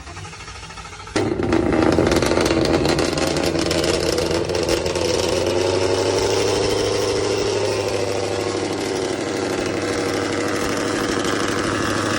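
Sound effect of a car with a very loud muffler-delete exhaust. It comes in suddenly about a second in and then keeps running loud and rough, its pitch wavering a little as if lightly revved.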